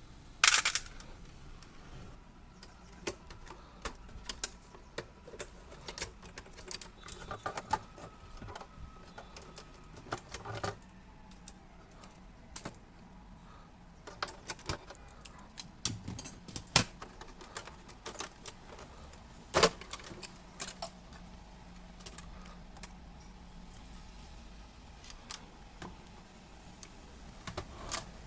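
Irregular light clicks and taps of small hard parts and tools being handled while a radio cassette recorder is worked on, with no speech. The clicks come at uneven intervals, with a few louder knocks.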